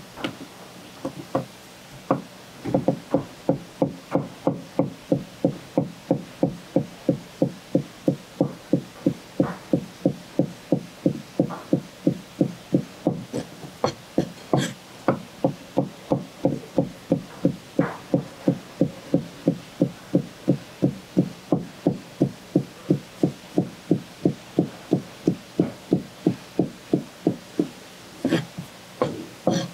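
A knife chopping on a cutting board in a steady rhythm of about two to three strokes a second while seafood is cut up for sashimi. The chopping stops near the end, with a few last strikes.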